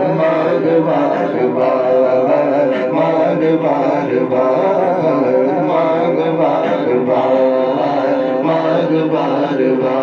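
Amplified male voices chanting an unaccompanied devotional naat refrain through microphones, sung continuously.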